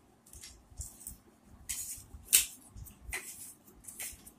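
Short scratchy rustles of fingers pinching chaat masala powder from a steel bowl and sprinkling it over papdi chaat. There are four or five brief rustles, the loudest a little past halfway.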